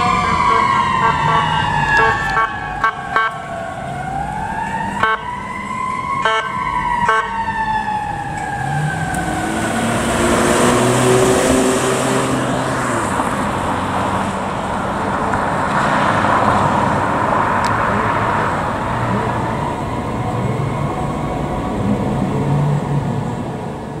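Heavy rescue truck's mechanical Federal Q siren winding down and winding up again, with several short air horn blasts. Then a police cruiser passes with its siren going over the engine noise.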